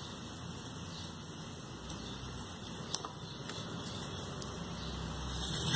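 Quiet background with a steady low rumble that swells slightly partway through, and one short faint click about three seconds in.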